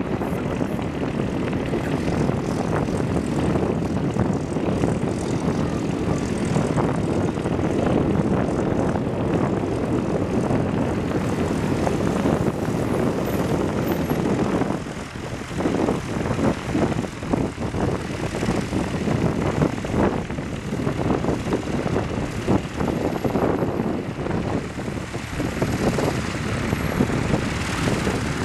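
Twin turboprop engines and propellers of a Bombardier Dash 8 airliner running at taxi power as it taxis and turns on the runway, a steady drone that becomes more uneven after about halfway.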